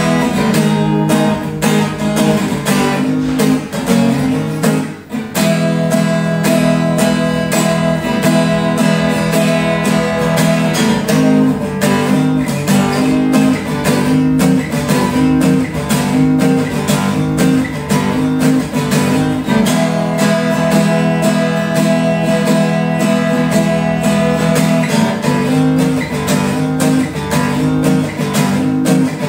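Yamaha F310 steel-string acoustic guitar played solo, fingerpicked and strummed in a quick steady rhythm, with a brief pause about five seconds in.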